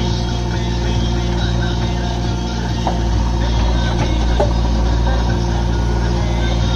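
JCB backhoe loader's diesel engine running steadily as the backhoe arm digs, scooping and lifting a bucket of earth out of a pit, with a couple of short faint knocks partway through.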